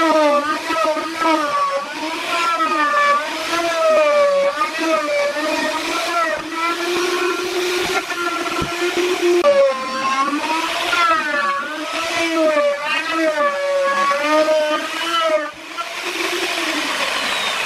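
Plunge router running and cutting through plywood, its high motor whine wavering up and down in pitch as the bit takes and sheds load.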